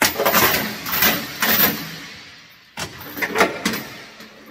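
Steel tie-down chain rattling and clanking against a metal chain box as one end is hung on a hook and the rest is let fall in a heap onto the box's floor. A long clatter dies away over the first second and a half, then a second burst of clanks comes about three seconds in.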